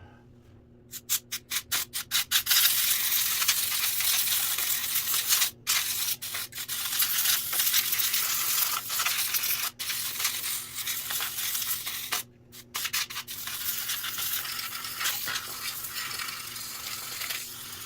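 Can of compressed air spraying in a quick series of short puffs, then long continuous blasts of hiss, with a brief break and a few more puffs partway through, blowing dust off box fan parts.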